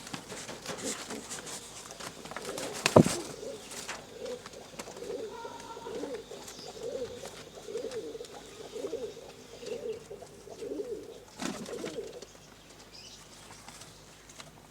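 Pigeon cooing: a run of repeated rising-and-falling coos, about one a second. A single sharp knock about three seconds in.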